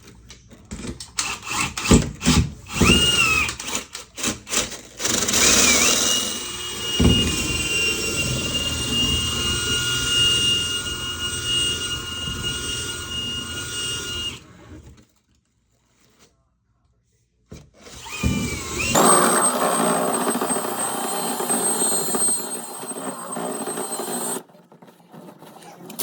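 Electric power-tool motor running with a steady whine, after some clicks and knocks, in two separate stretches divided by an abrupt gap of silence of about two seconds.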